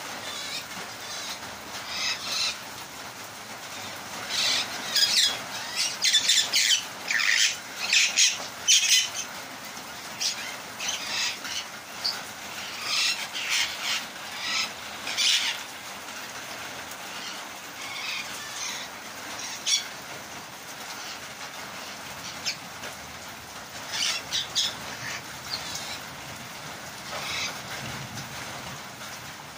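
Parrots in a rain-wet aviary: repeated short bursts of wing flapping and calls, busiest from about five to sixteen seconds in and again near the end, over a steady hiss of rain.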